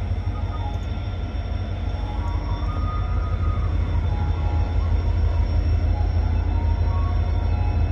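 Two WDG4 diesel-electric locomotives, each with an EMD 16-cylinder two-stroke engine, running together and humming. It is a deep, steady drone with faint high whining tones above it, slowly growing louder.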